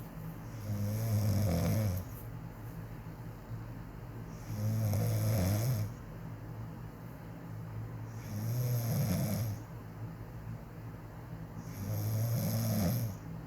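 Woman snoring in her sleep: four snores at an even pace, about one every four seconds, each lasting over a second.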